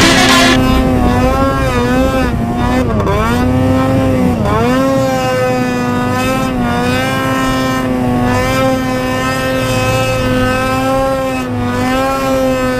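Snowmobile engine running hard at high revs through deep snow, its pitch dipping sharply and climbing back a few times in the first few seconds as the throttle changes, then holding fairly steady. Soundtrack music cuts off about half a second in.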